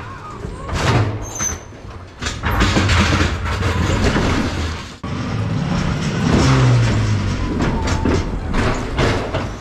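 Linde electric pallet truck driving a loaded pallet out of a lorry trailer: its motor hums and its wheels rumble over the floor, with clanks, in two long loud stretches.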